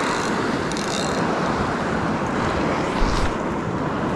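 Ocean surf washing against a rock platform, with wind buffeting the microphone. There is a single low thump a little over three seconds in.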